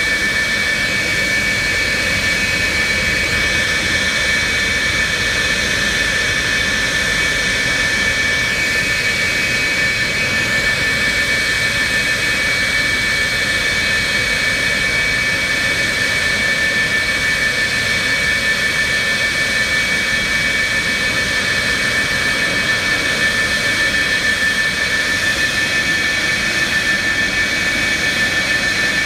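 F-4E Phantom's twin General Electric J79 turbojets running steadily on the ground, a rushing jet noise with a steady high-pitched whine.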